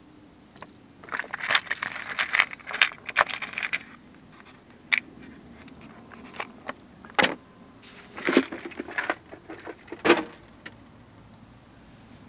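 Ceramic wire-wound power resistors with wire leads clinking and rattling against each other in a plastic box as they are rummaged through. A dense spell of clatter comes about a second in, then shorter bursts of clinks a few seconds apart.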